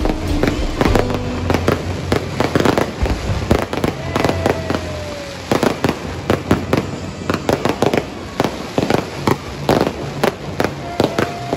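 Fireworks display: a dense run of bangs and crackles, coming thicker and faster in the second half.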